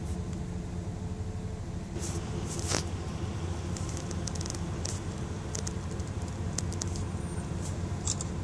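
Steady low hum of a car engine and road noise, with scattered light clicks and a brief rustle about two and a half seconds in.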